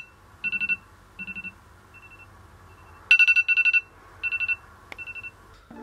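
iPhone alarm ringing: repeated groups of rapid high-pitched beeps. The groups are softer early on and loudest about three seconds in, with a single click near the end.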